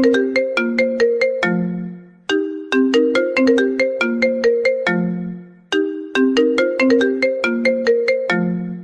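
iPhone ringtone playing on loop: a quick run of bright notes ending on a lower, longer note that fades. The phrase repeats about every three and a half seconds, starting over twice.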